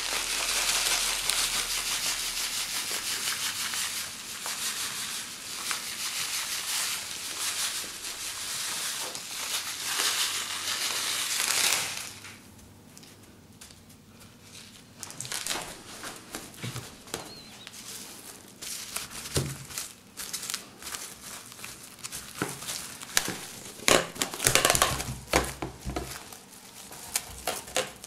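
Coarse salt pouring from a bag over duck breasts in a dish to cure them: a steady hiss for about twelve seconds that stops suddenly. After that come quieter scattered crunches of a hand patting the salt flat, and crinkling plastic cling film near the end.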